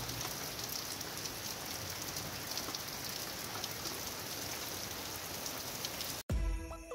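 Steady rain falling on a paved street and pavement: an even hiss with scattered drip ticks. It cuts off near the end and music starts.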